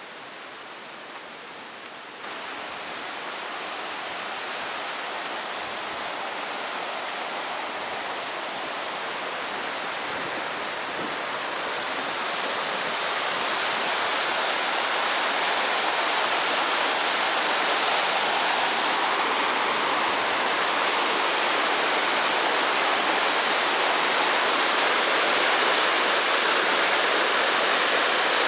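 Rushing water of a mountain creek, a steady hiss with no distinct splashes, growing louder over the first dozen seconds and then holding steady.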